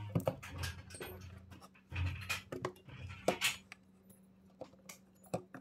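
Handling noises from a drill, a plywood plate and a circuit board being moved and set into a small plywood box: irregular scraping and rustling with light clicks and a few soft knocks of wood and plastic.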